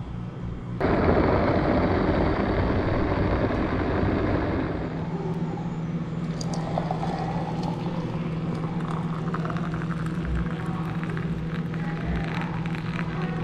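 Electric kettle boiling with a loud rumbling hiss that eases about four seconds in. In the last few seconds, hot water is poured from the kettle into a glass French press over ground coffee.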